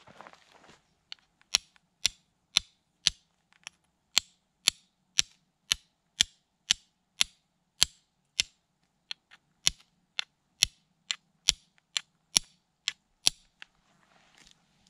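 Carbon-steel fire striker struck repeatedly against a hard stone, flint-and-steel style, to throw sparks: about two dozen sharp clicks at roughly two a second, starting about a second and a half in and stopping shortly before the end.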